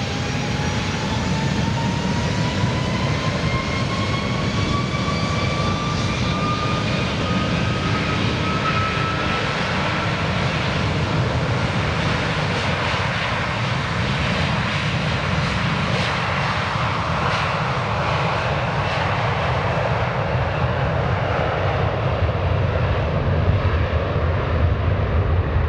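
The twin Rolls-Royce Trent 700 turbofans of an Airbus A330-200 spooling up to takeoff thrust. A whine climbs in pitch over roughly the first ten seconds and then merges into a loud, steady jet roar, with a deep rumble growing stronger near the end.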